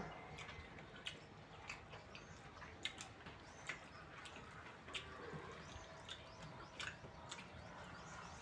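Faint eating sounds: chewing with scattered small clicks and taps, every second or so.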